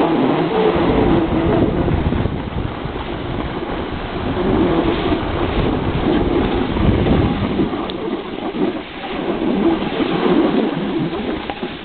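Wind buffeting the microphone and snow scraping under a snowboard riding down a groomed slope: a loud, rough rumble that swells and dips.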